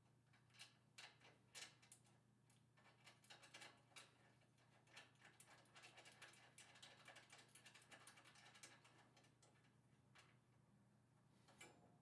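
Faint small clicks, taps and light rattles of a plastic 1U horizontal finger-duct cable manager and its mounting screw being handled and fitted by hand against a metal server-rack rail, busiest through the middle.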